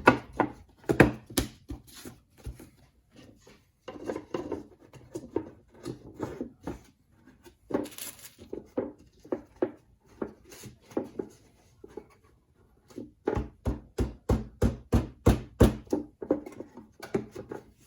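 Repeated knocks and taps on wood, irregular at first, then a quicker, even run of taps at about three or four a second near the end.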